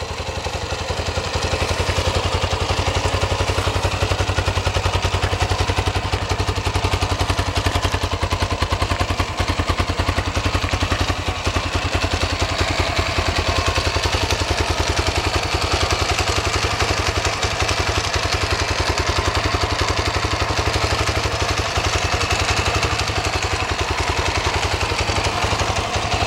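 Honda FourTrax 250X quad's air-cooled single-cylinder four-stroke engine idling steadily, its firing pulses rapid and even.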